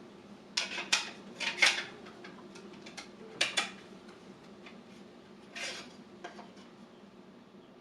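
Hard plastic clicks and clacks as the eufy Video Doorbell Dual is handled and fitted onto its mounting base plate, where it locks on. A cluster of sharp clicks comes in the first two seconds, two more around three and a half seconds in, and a last one near the middle.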